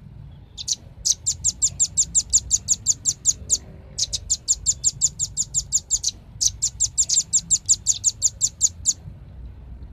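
Velvet-fronted nuthatch (rambatan paruh merah) calling: rapid runs of sharp, high chips, about six or seven a second, in three bursts of two to three seconds each with short breaks between.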